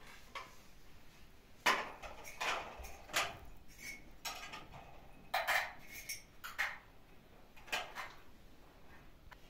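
Cups and dishes clinking as they are handled: a dozen or so irregular light knocks and clinks, each ringing briefly.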